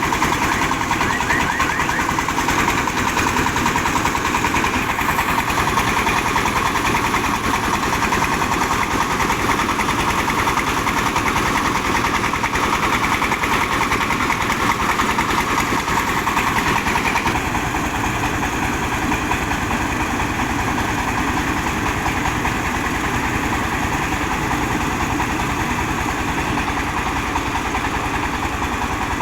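Diesel engine of a mobile rice-milling machine running steadily. About two-thirds of the way in its sound changes and gets a little quieter.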